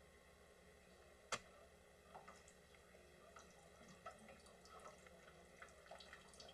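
Faint, irregular small ticks and drips at a water cooler's plastic spigot as a cat paws at it, with one sharper click about a second in, over a low steady hiss.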